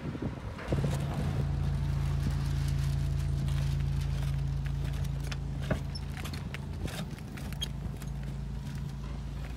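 A steady low engine hum starting about a second in, with scattered light clicks and knocks of footsteps on clay roof tiles.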